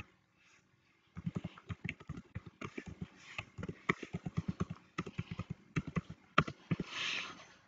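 Typing on a computer keyboard: a quick run of keystrokes entering a search term, followed near the end by a short soft hiss.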